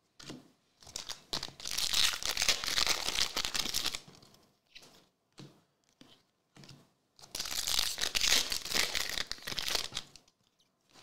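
Foil wrappers of 2023 Select AFL Legacy trading card packs tearing and crinkling as they are ripped open, in two stretches of a couple of seconds each.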